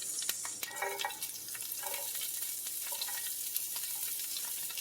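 Chopped green onions frying in a hot pan: a steady high sizzle, with a few light clicks of a utensil against the pan.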